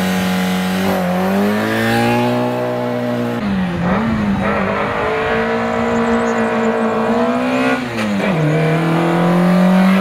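Rally car engine held at high, steady revs, the pitch dropping briefly and climbing back several times, with a little tyre squeal.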